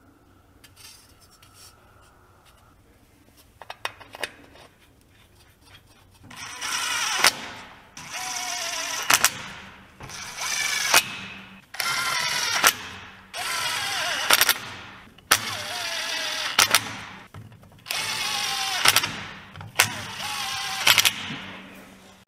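Impact wrench run in about eight bursts of a second or two each, the pitch rising through each burst and ending with a sharp click, while fasteners are spun off a truck axle hub. A few light clicks come before the first burst.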